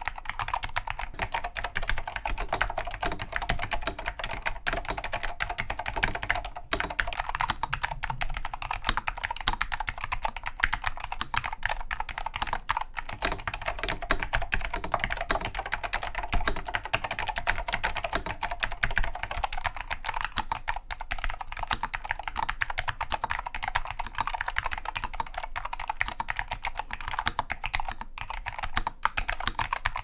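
Continuous fast typing on an NTC KB-5181EN keyboard with vintage Alps SKCM Salmon clicky switches: a dense run of sharp keystroke clicks. The board is heard both bare on its metal mounting plate and fitted in its thick plastic case with a metal back panel, which damps the switch sound.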